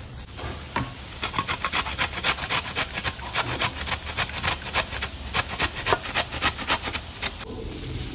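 Peeled carrot grated on the coarse side of a stainless steel grater: a run of quick rasping strokes, about three a second, that stops shortly before the end.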